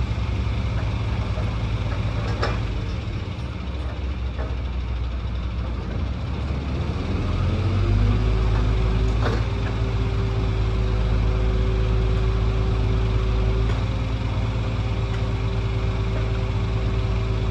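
Heavy diesel engine running steadily; it drops back for a few seconds, then its pitch rises and it runs louder from about seven seconds in. Two sharp clicks, one early and one about nine seconds in.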